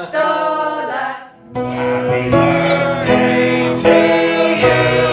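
A song with singing over an instrumental backing; the singing breaks off briefly about a second and a half in, then resumes with a fuller accompaniment.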